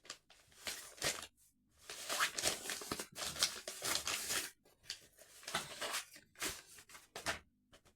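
Plastic packaging on a 4K Blu-ray steelbook being torn and crinkled by hand, in three stretches of rustling with short pauses between them.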